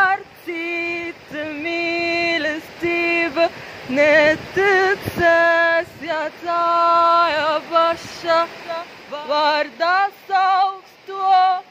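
A woman's voice singing unaccompanied: held notes with vibrato, broken by quick leaps up and down in pitch, in a yodel-like style.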